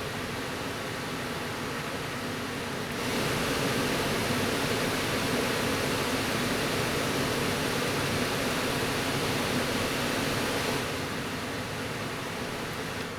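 Kitchen extractor fan running with a steady whoosh and a faint hum. It steps up louder about three seconds in, drops back about eleven seconds in, and begins to die away at the end as it is switched off.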